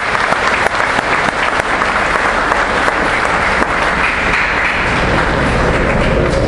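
Congregation applauding: dense, steady clapping that runs throughout.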